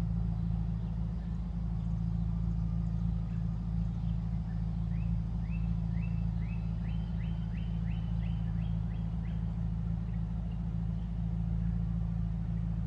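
Steady low motor hum from a neighbour's running equipment. Midway through it, a series of short rising chirps comes faster and faster, then stops.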